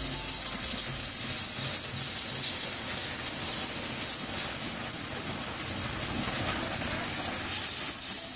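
Pressure washer spraying a high-pressure water jet onto a doormat: a loud, steady hiss of spray with a faint high whine, cutting off suddenly at the end.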